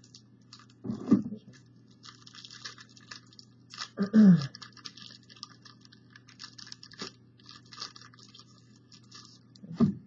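Trading card booster pack wrappers crinkling and crackling as they are torn open and the cards pulled out.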